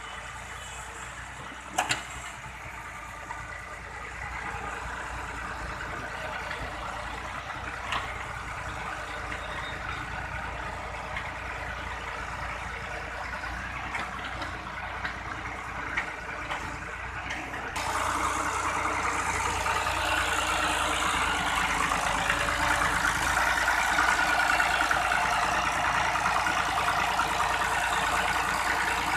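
Tractor engine running steadily, becoming louder about two-thirds of the way through, with a single click near the start.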